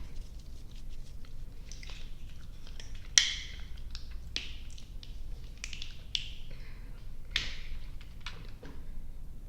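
Close-miked chewing of soft, sticky gummy and marshmallow candy: wet, sticky mouth clicks and smacks in an irregular run, with one sharper, louder click about three seconds in.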